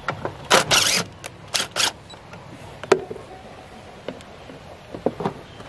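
Cordless drill/driver running in short trigger bursts, driving an exterior decking screw into a wooden board: the longest run comes about half a second in, with shorter pulses after it and again near the end. There is one sharp click about halfway through.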